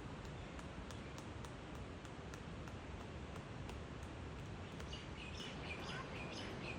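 Outdoor ambience with a steady background hiss, light repeated ticks, then small birds chirping in a quick cluster during the last couple of seconds.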